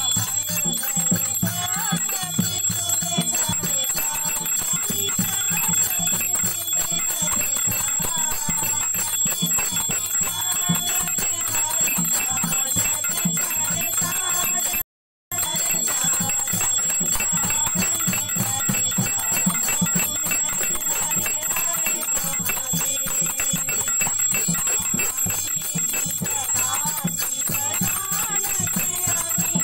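Aarti bell rung continuously while a group of women sing a devotional kirtan, with a steady rhythmic beat underneath. The sound cuts out for a moment about halfway.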